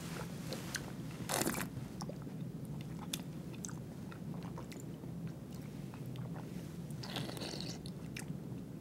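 A taster sips red wine, drawing it in with a short slurp about a second and a half in, then works it around his mouth with small wet mouth clicks; a longer breathy hiss of air comes near the end.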